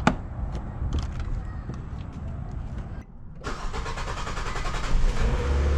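Nissan Sentra engine starting about halfway through and settling into a steady idle with a slight rise in speed near the end, just after its throttle body and MAF sensor have been cleaned and refitted. Before the start there are scattered clicks.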